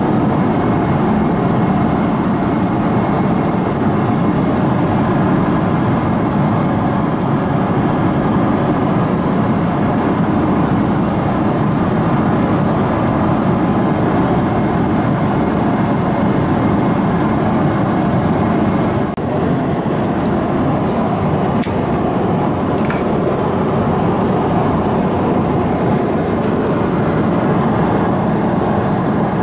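Steady cabin drone of a Boeing 777-300ER in cruise, its GE90 engines and airflow heard from inside the cabin, with a few faint clicks in the second half.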